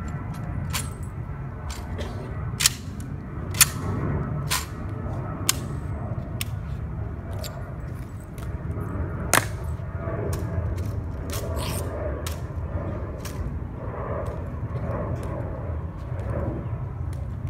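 A dozen or so sharp clicks and smacks, unevenly spaced, the loudest about nine seconds in: a ceremonial rifle inspection, with hands slapping the rifle, its bolt worked and the rifle passed between two soldiers, and heel clicks.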